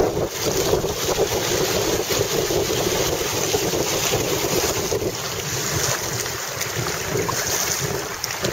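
Steady wind noise on the microphone over water rushing and splashing past the hull and outrigger floats of a Hobie Tandem Island sailing trimaran moving through choppy water.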